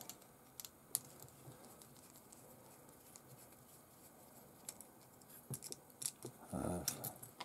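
Faint, sparse clicks and small scrapes of a screwdriver and screw as a mount is fitted to the plate of an RC car's mechanical speed controller.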